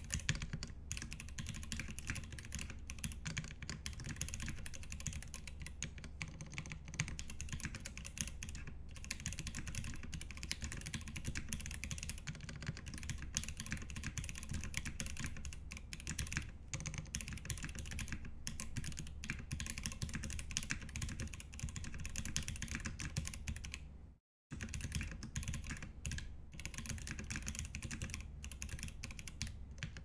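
Continuous typing on an aluminium KFE mechanical keyboard with lubed Greetech Black linear switches on 55 g springs, a polycarbonate plate and PBT keycaps: a dense, unbroken stream of keystrokes, cut off briefly once about 24 seconds in.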